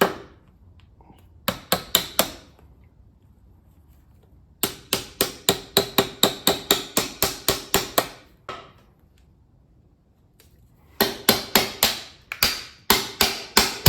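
Hammer striking a putty knife wedged into the seam of a Gravely riding-tractor transmission case to split the case halves, which are stuck together with sealant. It comes in three runs of quick blows, about four a second, each with a ringing metallic note.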